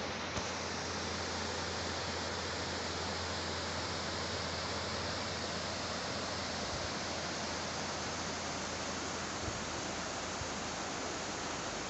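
Fast-flowing river rushing over a rocky bed: a steady, even rush of water with a low rumble beneath it.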